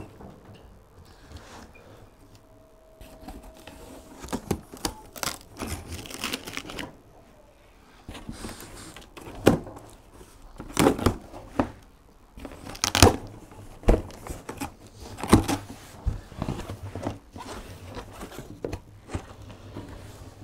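Packing tape on a cardboard box being cut with scissors and torn off, with the cardboard flaps scraping and crinkling as the box is opened, in irregular sharp rasping strokes starting about four seconds in.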